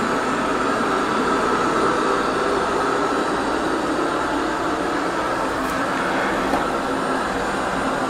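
Eufy RoboVac 30C robot vacuum running on a rug: a steady whirring noise with a faint steady whine on top. Its owner finds it not too noisy.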